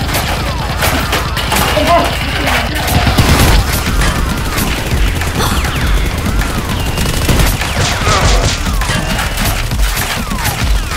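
Rapid gunfire sound effects for a Nerf blaster fight: many shots in quick succession, with short swooping whistle-like tones between them and a low pulsing beat underneath.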